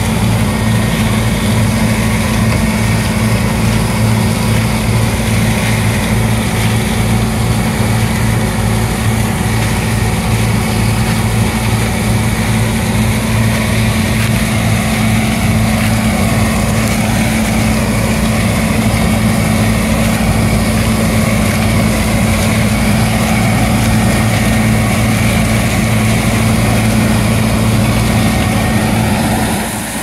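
John Deere Turbo 6620 combine harvesting corn: its turbocharged diesel engine and threshing machinery running steadily under load, with a constant low hum.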